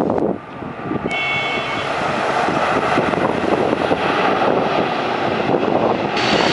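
Bombardier Q400 turboprop's Pratt & Whitney PW150A engines and propellers running loudly as the airliner rolls out on the runway after landing, with wind on the microphone. A brief high whine comes in about a second in.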